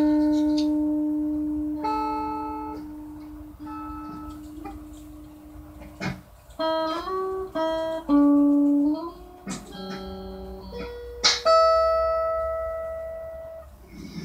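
Electric guitar played slowly: single plucked notes that ring out and fade over a second or two, with a run of quicker notes and short slides between them about halfway through.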